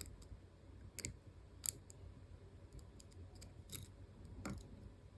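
Four faint, sharp clicks of lock picking tools working the spring-loaded sliders and core of an EVVA ICS lock cylinder.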